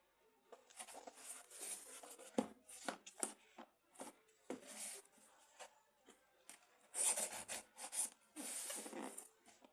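Packaging being handled and torn open by hand: irregular bursts of crinkling and tearing, with a few sharp knocks.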